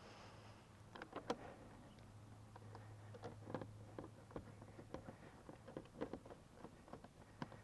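Irregular small clicks and taps of parts being handled during reassembly, the sharpest about a second in, over a faint steady low hum.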